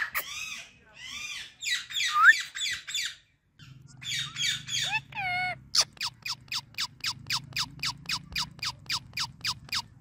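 Indian ringneck parakeet squawking. High calls for about three seconds, then after a short pause a rapid run of sharp repeated calls, about four a second.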